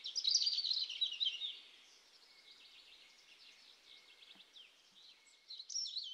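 Songbird song, high and twittering, with quick trills. It is loud for the first second and a half, fainter through the middle, and comes back with another loud phrase near the end.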